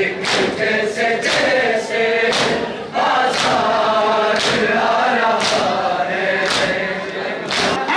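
A crowd of men chanting a noha together, with the hand-on-chest slaps of matam landing in unison about once a second.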